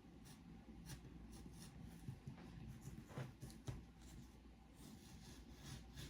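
Faint snips of scissors cutting paper: a few scattered short cuts, the clearest a little past halfway.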